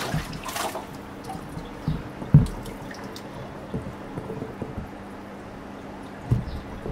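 Aquarium fish net pulled out of the tank water with a splash about half a second in, then water dripping and trickling from the mesh net holding a flowerhorn cichlid. A dull thump comes about two and a half seconds in and a softer one near the end, over a steady low hum.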